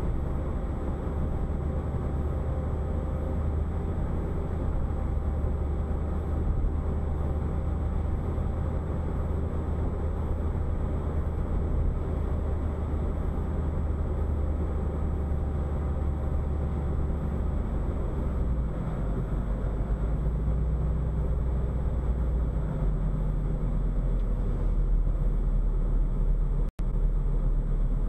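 Interior noise of a moving car picked up by a dash cam's built-in microphone: steady engine and road rumble. The low hum shifts in pitch about two-thirds of the way through, and the sound cuts out for a split second near the end.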